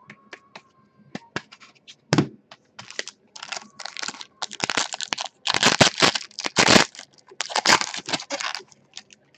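Foil trading-card pack wrapper crinkling and tearing as it is ripped open. Scattered sharp crackles early on build into dense, loud crinkling in the second half.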